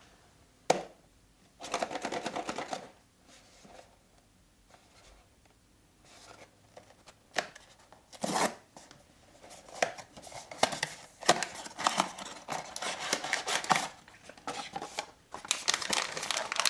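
Blind-box packaging handled and opened: a sharp click and a few short scrapes and rustles, then a long run of crinkling and rustling through the second half as the wrapping inside is worked open.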